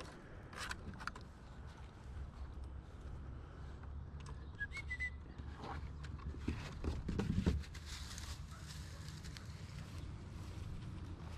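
A puppy's paws tapping and scraping on weathered wooden ramp boards, scattered short knocks over a low steady rumble, with a louder thump about seven seconds in. A short high chirp sounds about five seconds in.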